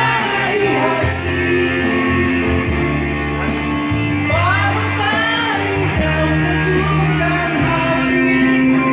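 A song with a solo singing voice over a band backing of electric guitar and bass.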